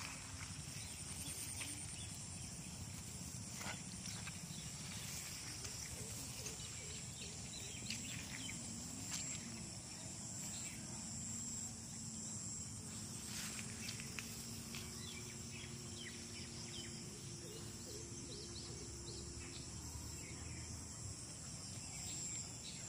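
Outdoor rural ambience: a steady high insect drone over a low rumble of wind or camera handling, with occasional soft rustles and ticks. A faint distant wavering tone comes in about eight seconds in and is then held for long stretches through the middle.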